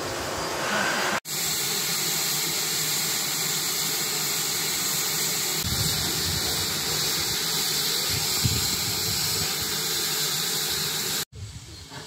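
GWR 57xx pannier tank steam locomotive No. 7714 letting off steam: a steady, loud hiss that cuts in abruptly about a second in and stops abruptly near the end.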